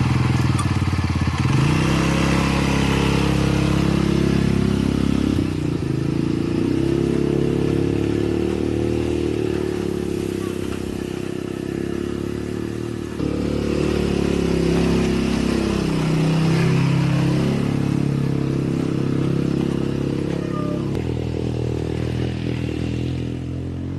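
Motor tricycle engine running while riding, its pitch rising and falling with the throttle. It eases off about 13 seconds in, then picks up again, and near 17 seconds it drops and climbs back.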